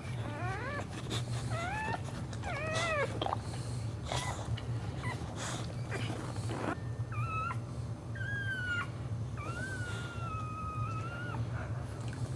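Boxer dog in labour whining: short high-pitched whimpers that rise and fall in the first few seconds, then two longer drawn-out whines in the second half. Scuffs of the dog shifting on the cushions come in between, over a steady low hum.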